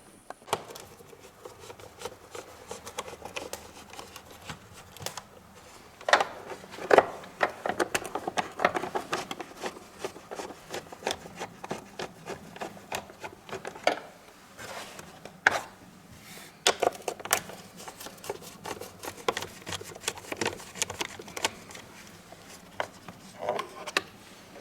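Irregular clicks, taps and knocks of hands working on plastic parts of a car's engine-bay air filter housing, with a few louder knocks along the way.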